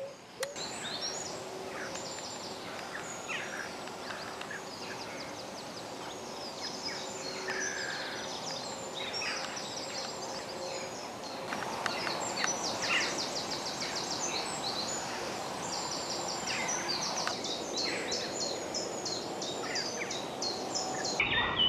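Dawn chorus of songbirds: many overlapping high chirps and trills, busiest in the second half, with a faint steady low drone in the first half.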